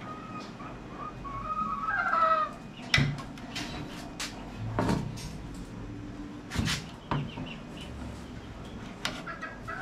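A chicken calling once for about two seconds at the start, ending in a falling note. After it come several sharp clicks and knocks as the wooden cage frame and its nylon tie are handled and cut.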